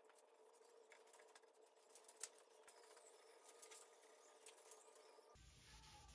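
Near silence: faint rustles and small ticks of a rag wiping oil stain onto a red oak tabletop, over a faint steady hum. About five seconds in, the background changes abruptly to a low rumble.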